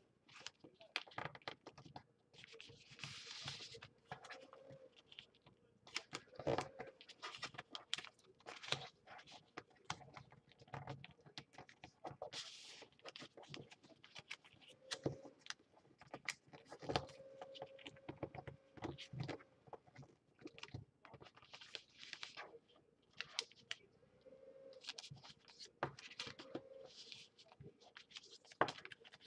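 Sheets of origami paper being folded and creased by hand on a tabletop: faint crinkling and rustling, with many light taps and scrapes of paper against the table.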